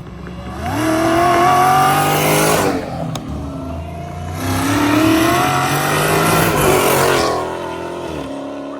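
Supercharged Hellcat V8 revved twice, its pitch climbing and falling back each time, then settling to a lower steady run near the end.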